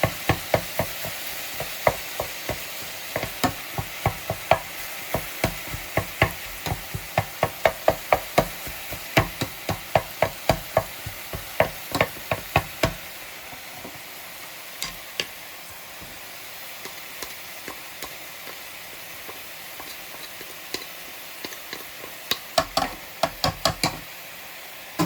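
Mince frying with a steady sizzle in an oiled pan while a mince-breaking tool knocks against the pan. The knocks come about two to three a second for the first half, then only now and then, with a short quick run near the end.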